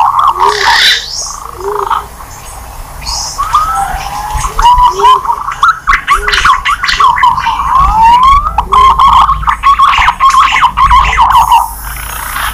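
Green pigeons (punai) calling: many overlapping whistled notes that glide and waver up and down. The calls thin out briefly early on, and a short low note recurs beneath them.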